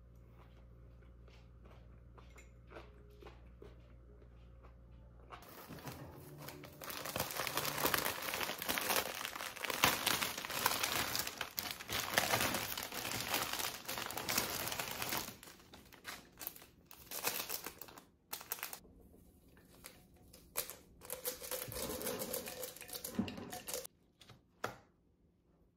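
Plastic bouquet wrapping crinkling and tearing as it is pulled off a bunch of flowers, with dense crackling for several seconds, then lighter scattered rustles and clicks as the stems are handled. Before that, about five seconds of a quiet low hum of room tone.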